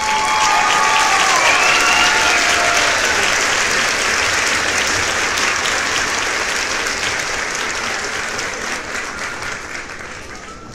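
Audience applauding, with a few cheering voices over the clapping in the first few seconds. The applause is loudest near the start and dies away over the last few seconds.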